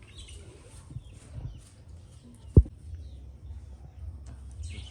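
A single sharp thump a little past halfway, over a low steady rumble.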